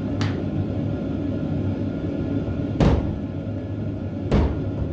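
Three sharp knocks about a second or more apart as a steel sway bar and its bushings are handled, over a steady low hum.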